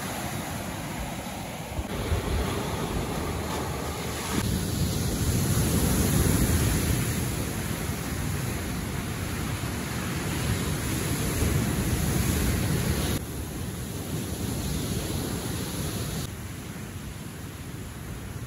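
Ocean surf breaking and washing up a sandy beach, with wind buffeting the microphone. The level jumps abruptly a few times.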